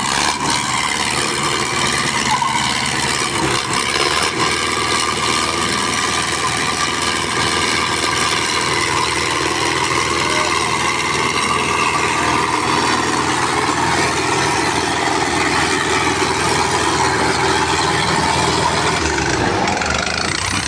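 Two diesel farm tractors, a Swaraj 744 and a Sonalika, running at full throttle and straining against each other under heavy pulling load, the engines loud and steady.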